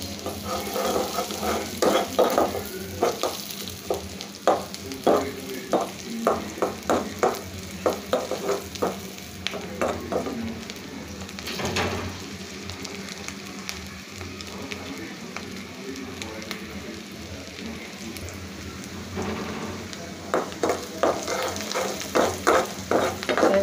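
Chopped garlic and green chilies sizzling in hot oil in a karahi, with a spatula stirring and scraping the pan in quick repeated strokes. The stirring stops for several seconds in the middle, leaving a steady sizzle, and starts again near the end. This is the garlic being fried toward brown for the tempering (baghar) for dal.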